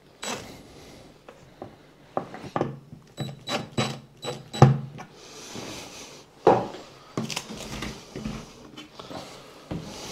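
Shower tray being handled and shifted: a run of sharp clicks and knocks about two to five seconds in, the loudest near the middle, then a scraping rub and a few more knocks as the tray is tipped up.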